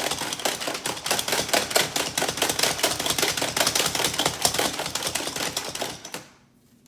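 Food chopper mincing garlic cloves: a fast, steady clatter of blades and pieces striking the container, stopping about six seconds in.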